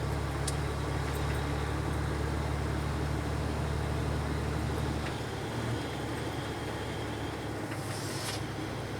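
A truck engine runs steadily, heard from inside the cab. Its low drone drops about five seconds in, and a short hiss comes near the end.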